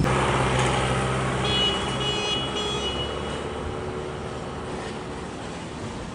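A motor vehicle running with a steady engine tone over road noise, fading gradually.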